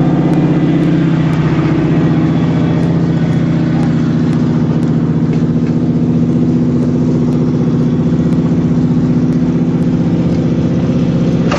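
Jeep engine running steadily close by, its pitch easing down slightly in the first couple of seconds, then holding even.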